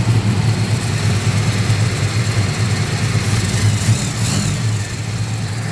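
Small-block Chevy V8 idling steadily, running much better on a spare 4160 carburettor fitted in place of one that was flooding it with fuel.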